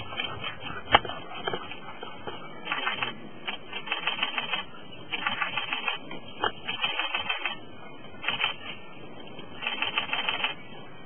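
Camera shutters firing in rapid bursts: runs of quick mechanical clicks lasting about half a second to a second each, repeating every second or two, with one sharp single click about a second in. This is the sound of continuous-shooting cameras photographing the leopard.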